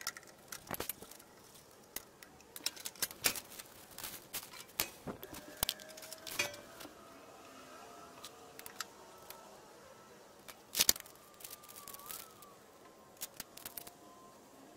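Scattered small clicks and rattles of the power-cord wires and their connectors being worked loose from the terminal block inside a Hobart Beta MIG 200 welder, with one sharper knock about eleven seconds in.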